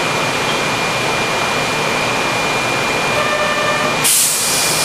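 Steady hum and hiss of a subway train standing at an underground platform, with a faint steady whine. A short tone sounds just after three seconds, and about four seconds in a sudden loud hiss of air starts and carries on.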